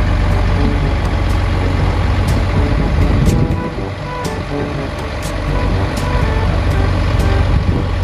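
Scania 93 truck's diesel engine running steadily while driving its loader crane, which is holding a portable cabin, with a deep, even hum.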